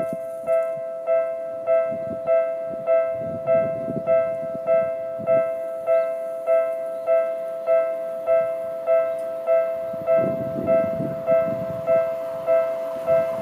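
Electronic Japanese level-crossing warning bell ringing over and over at a steady beat of about one and a half to two dings a second, a bright two-tone ding, signalling that a train is approaching the crossing. A low rumble rises and falls underneath.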